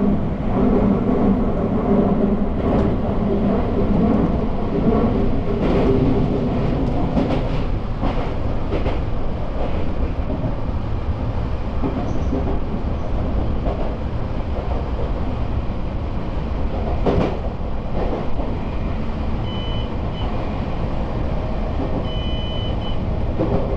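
Sagami Railway electric commuter train running on the rails: a steady rumble with sharp clicks of the wheels over rail joints in the first half, and a short high tone sounding twice near the end.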